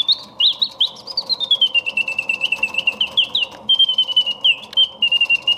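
Vintage German singing bird alarm clock's mechanical bird singing: a bellows-driven whistle warbling in quick chirps and upward slides, with a long falling glide about a second in, over a fast run of clicking from the mechanism.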